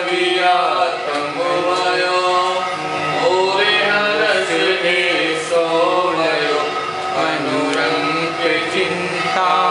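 A Hindi Jain devotional hymn sung in long melodic held notes that bend up and down, over a steady low tone.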